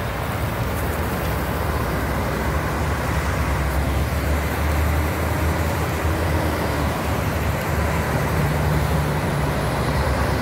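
Heavy-haul truck passing: the diesel engine of the tractor unit and the tyres of its multi-axle low-loader trailer make a steady low rumble. The rumble grows louder about halfway through and again near the end.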